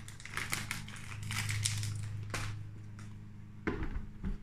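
A bag of nutritional yeast crinkling as it is handled, over a steady low hum. Near the end there are a couple of plastic knocks as the blender lid is pressed onto the jar.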